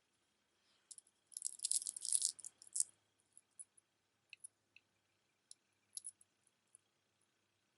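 Stone beads and tumbled stones clicking and rattling against each other as they are handled: a burst of rattling over about a second and a half, then scattered single clicks.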